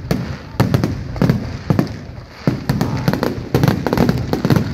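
Fireworks display: aerial shells bursting in rapid succession with crackling. The bangs thin out briefly about two seconds in, then come thicker again towards the end.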